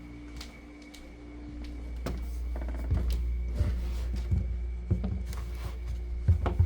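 Footsteps climbing a staircase, a regular thud about every 0.7 seconds, over the low rumble of a handheld camera being carried. A steady hum is heard in the first couple of seconds.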